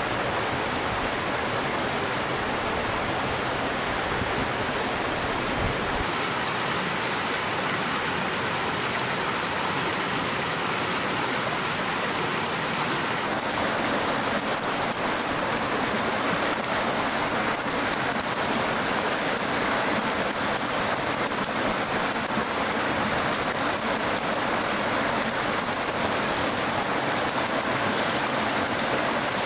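Cascading mountain stream rushing steadily, a full, even wash of water noise that grows a little fuller about thirteen seconds in.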